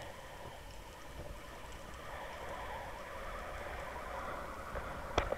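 Steady, muffled underwater noise heard through a submerged fishing camera's housing, with a sharp knock near the end.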